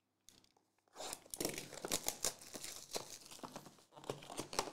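Packaging on a trading-card box being torn and crinkled open. A run of crackling with many sharp little clicks starts about a second in.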